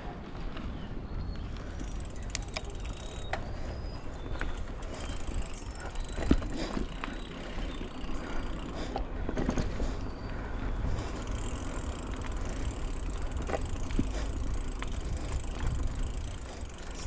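Mountain bike riding over a dirt singletrack: a steady low rumble of tyres on dirt, with scattered clicks and rattles from the bike and one sharp knock about six seconds in.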